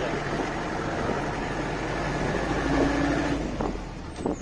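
Safari jeep driving along a forest track: its engine and tyres make a steady rumble that eases slightly near the end.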